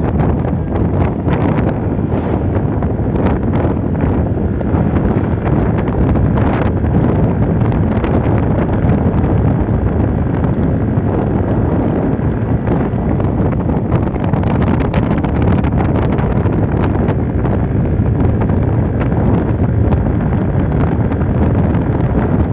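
Wind buffeting the microphone on a moving Yamaha Aerox 155 scooter, a loud, steady rumble, with the scooter's single-cylinder engine and CVT running steadily beneath it.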